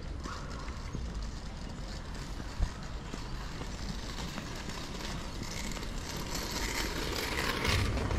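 Steady outdoor background rumble and hiss, with one sharp tap a little over two and a half seconds in; the hiss swells near the end.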